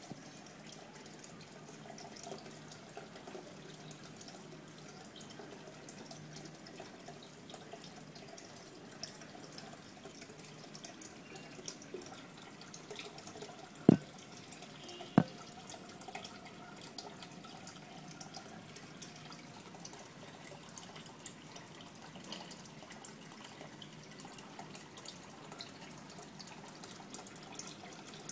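Aquarium water trickling and dripping steadily. Near the middle come two sharp knocks about a second apart.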